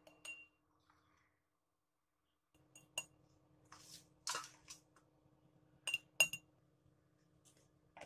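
A spoon clinking against the rim of a glass jar and a steel plate as ground spice powder is spooned into the jar. The clinks come singly, with a soft scrape of powder about four seconds in, and the sharpest clink comes about six seconds in.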